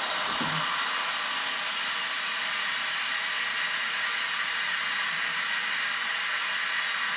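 Compressed shop air rushing through a Snap-on venturi vacuum coolant filler in a steady hiss. The filler is drawing the snowmobile's purged cooling system back down to full vacuum before the coolant is let in.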